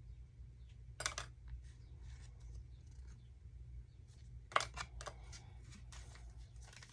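Faint handling noises of trading cards being shuffled and slid by hand: soft scrapes and rubs, with a sharper click about a second in and another about four and a half seconds in, over a low steady hum.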